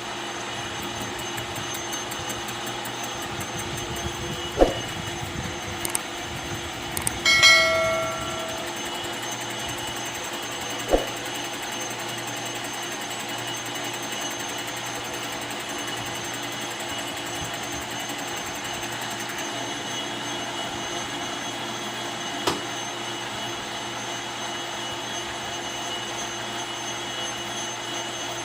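Metal lathe running with a steady machine hum. A few sharp metal knocks sound over it, and a ringing clink comes about seven seconds in.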